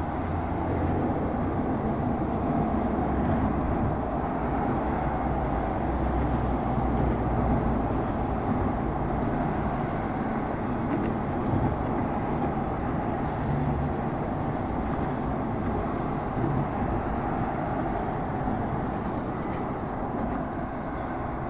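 Steady city traffic noise: a continuous rumble and hiss with no distinct events.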